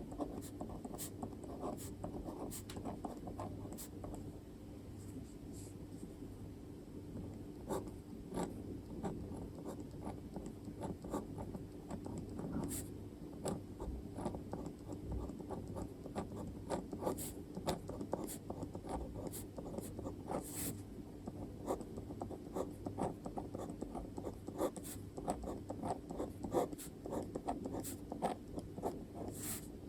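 A pen writing by hand on paper: continuous scratching strokes broken by frequent short, sharp ticks as the pen lifts and lands.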